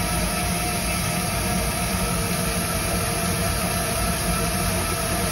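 LEGO MINDSTORMS Robot Inventor motors running steadily, turning an egg between rubber wheels: an even mechanical hum with a faint steady whine.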